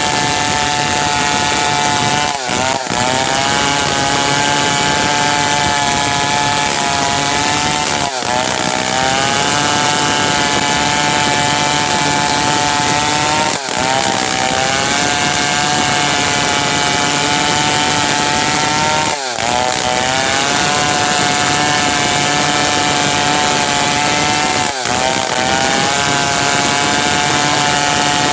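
Stihl 070 two-stroke chainsaw running at high speed while sawing merbau timber. Its note stays steady and dips briefly, then recovers, about every five and a half seconds, five times.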